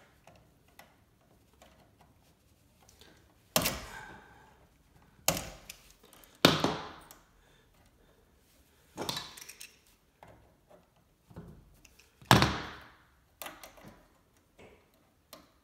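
Clicks and knocks of an exercise bike's resistance cable being worked loose and pulled out of the resistance motor: about five sharp, louder knocks spread through, among fainter clicks.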